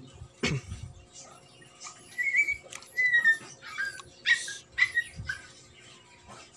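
An animal whimpering in about six short, high-pitched whines, some dropping slightly in pitch, with a single knock about half a second in.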